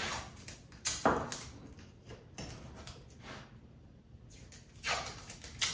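Wooden panel pieces being handled and shifted on a workbench: a sharp knock about a second in, light scuffing, then two more short knocks and scrapes near the end.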